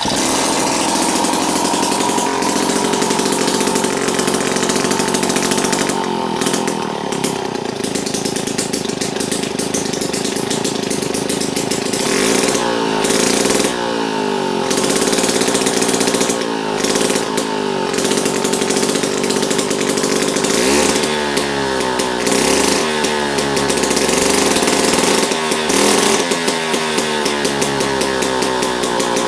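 Early Tecumseh small two-stroke engine running on the bench, just after catching on the pull rope, its speed rising and falling several times.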